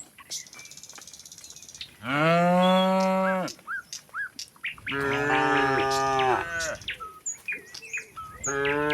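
Cattle mooing: a long moo about two seconds in, two moos overlapping around five seconds in, and another starting near the end.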